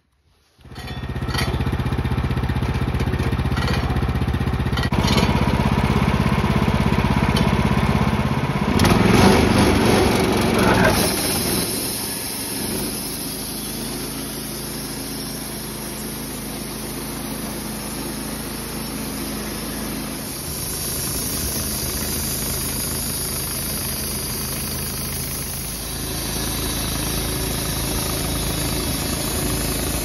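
Wood-Mizer LT15 Start sawmill's engine starting abruptly about half a second in and running up to speed, loudest around ten seconds in. It then runs steadily as the band blade saws its first cut lengthwise through a spalted alder log.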